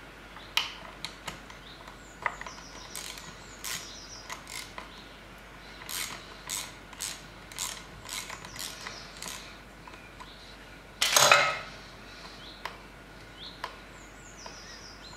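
Ratchet wrench clicking in short strokes, loosening the 12 mm oil drain bolt of a Yamaha F4A four-stroke outboard, with a louder rattling burst about eleven seconds in.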